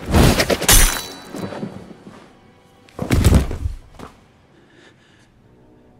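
Movie fight sound effects: a loud crash of impacts in the first second, then another heavy impact about three seconds in with a smaller knock just after. Low, sustained dramatic music then comes in quietly.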